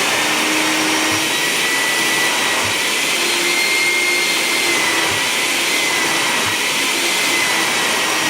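Carpet extractor's vacuum motor running steadily with a high whine, drawing the sprayed dye solution back out of the carpet fibres.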